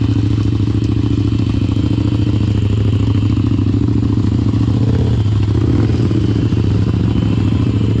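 Engine of a 100-horsepower Power Wheels 4x4 running at fairly steady revs as it drives down a rough dirt trail just ahead, with clattering from the rough ground.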